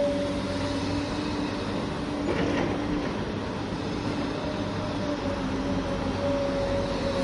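Electric motors and gearing of radio-controlled construction machines running with a steady whining hum, with a brief rasping sound about two and a half seconds in.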